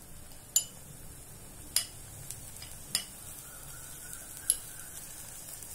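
Four sharp metallic clinks, spaced about a second apart, as a spoon knocks against steel vessels while turmeric powder is added to a steel kadai. A low steady hiss lies under them.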